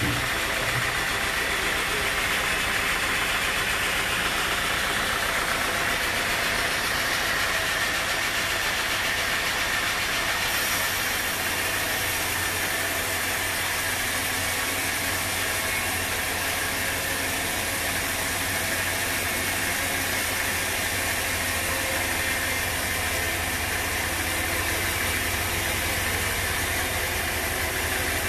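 Band sawmill running, its blade sawing a large teak log on the moving carriage: a steady mechanical drone, with a deeper hum that strengthens about ten seconds in.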